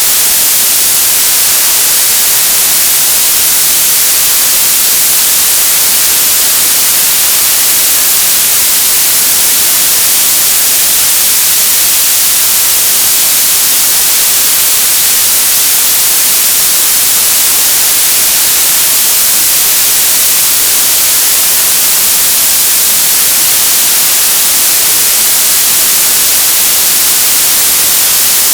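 Television static: a loud, steady hiss that is brightest in the high range and never changes.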